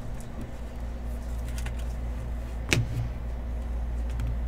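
Steady low hum of room noise, with faint handling of trading cards and one sharp click nearly three seconds in.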